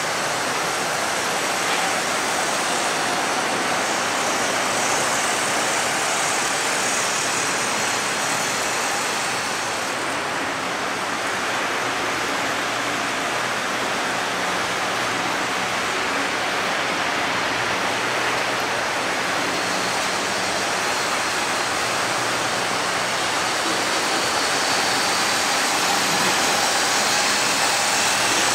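Model trains running on a large layout's tracks: a steady, continuous rumbling whir with no breaks.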